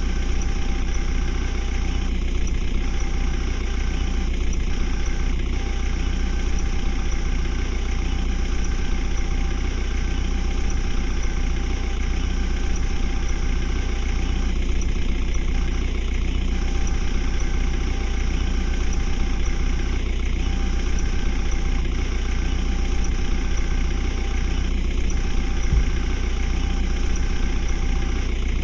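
JCB 3DX Xpert backhoe loader's diesel engine idling steadily.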